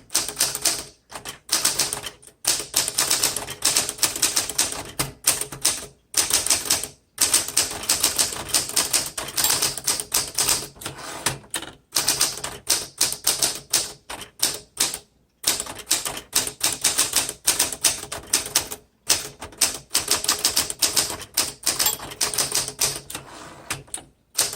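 1968 Smith Corona Super Sterling manual typewriter being typed on: quick runs of sharp keystrikes of the typebars against the platen, broken by brief pauses every few seconds.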